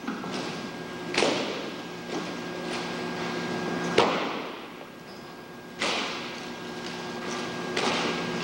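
Sharp rifle slaps and rifle-butt or heel strikes of a silent precision rifle drill, a handful of cracks a second or two apart, each echoing in a large hall.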